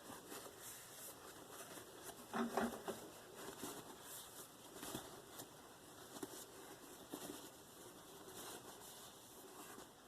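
Knife blade being stropped on a balsa strop loaded with 1 micron diamond paste: a run of light, quick scraping strokes, with a few louder scrapes about two and a half seconds in.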